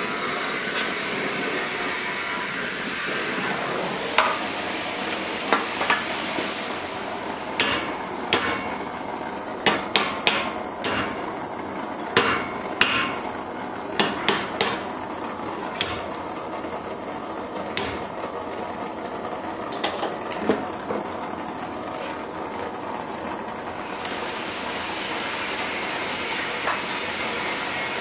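A gas torch flame hissing as it heats a small steel piece. About four seconds in, a hammer starts striking the hot steel against a vice: about twenty sharp blows at an uneven pace, with short pauses between runs, over a steady hiss that continues underneath.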